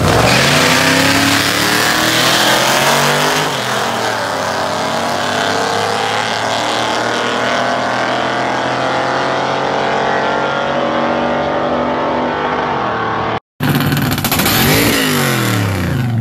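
A 383 stroker small-block V8 pickup and a 5.0 Mustang launching side by side on a drag strip, their engines revving up through the gears as they pull away. After a brief cut near the end, an engine close by revs up and drops back.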